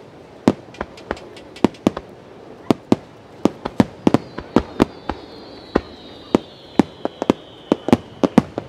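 Starmine fireworks barrage: sharp shell bursts going off in quick, irregular succession, about three a second. Midway a faint high whistle slowly falls in pitch behind the bangs.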